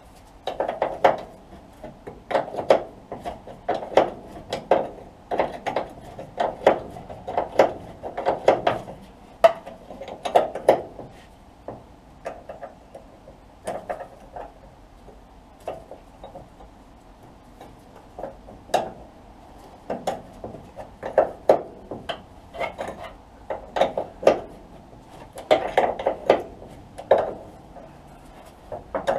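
Hand wrench working a tight shock absorber mounting nut loose: repeated metal clicks and clacks in short clusters about every second and a half, with short pauses between.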